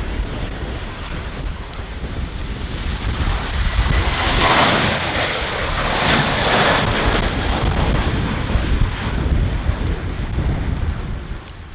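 Gale-force wind buffeting the microphone with a deep, steady rumble, while a jet airliner's noise swells up and fades away again over a few seconds around the middle.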